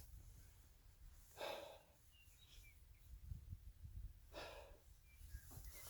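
Near silence with a faint low rumble, broken twice by a short, soft breath-like hiss, about a second and a half in and again near four and a half seconds.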